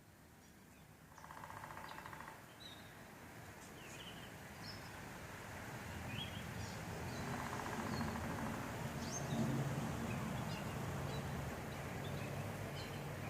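Woodpecker drumming: two rapid rolls of knocks on wood, each about a second long, the first about a second in and the second about seven seconds in. Other birds chirp briefly in between, over a low background rumble that grows louder.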